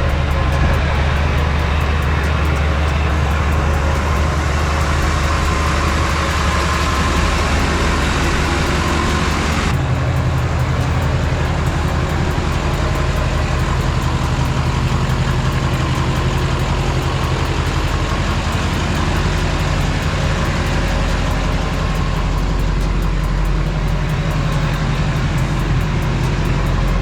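Duramax turbo-diesel truck engine running steadily, with an abrupt change in its sound about ten seconds in.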